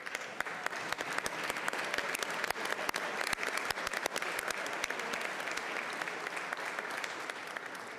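A roomful of state legislators applauding, many hands clapping at once. The applause fades out near the end.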